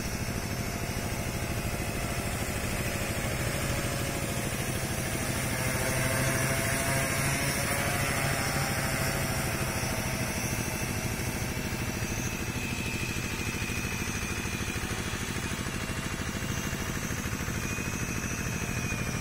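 Agricultural spraying drone flying over a crop field, its propellers giving a steady mechanical hum that swells slightly about six to eight seconds in.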